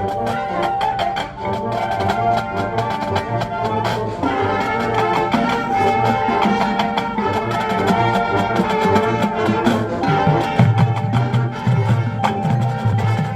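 High school marching band playing: brass (trumpets and trombones) holding notes over marching percussion, with the low brass coming in stronger near the end.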